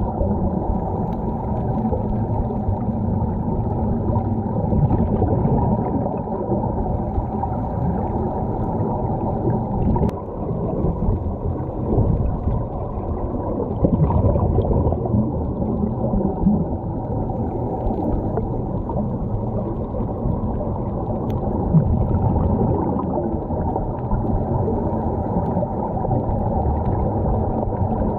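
Muffled underwater rumble with steady gurgling of air bubbles, heard through a camera below the surface; the air pumped into sea-walking helmets escapes in streams of bubbles.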